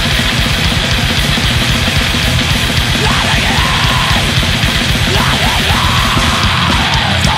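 Loud hardcore punk recording: heavily distorted electric guitars over fast, pounding drums, dense and unbroken.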